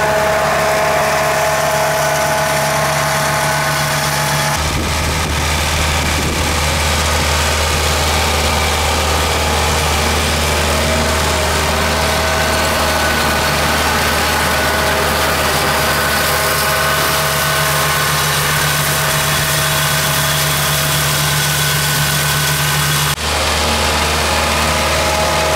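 Tractor engine running steadily at working speed, driving a PTO flail mower with Y-blades as it cuts tall grass and weeds. The engine's pitch pattern shifts abruptly about four and a half seconds in and again near the end.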